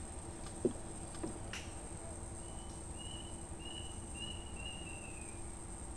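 A bird calls a run of about five short, slightly falling whistled notes in the second half, over a steady high-pitched tone and a low background rumble. A sharp knock, the loudest thing here, comes just under a second in, with a fainter knock shortly after.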